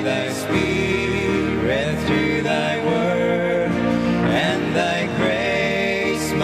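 Two men singing a hymn together over instrumental accompaniment.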